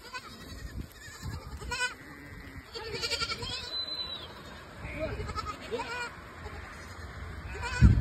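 A herd of goats bleating, several separate calls from different animals, the loudest one close by near the end.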